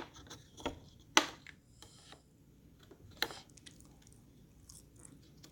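A few sharp taps and clicks of a window trim piece being pushed and knocked into place in the frame, the two loudest about a second in and about three seconds in.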